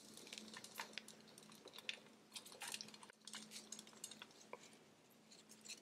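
Faint rustling and crumbling of loose potting soil as hands pull apart a plant's root ball, with grains of soil falling onto a tray in light, scattered ticks.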